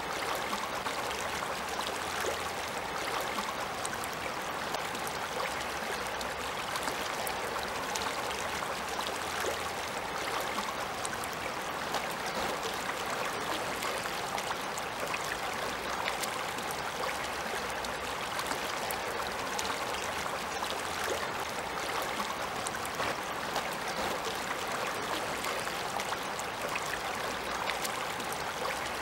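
Shallow river running steadily over a stony bed, a constant rush of water with fine crackling ripples.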